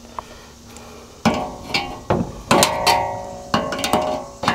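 A quick, irregular series of sharp metallic strikes starting about a second in, each one ringing on briefly, like metal parts of an air-conditioner condenser being hammered or tapped.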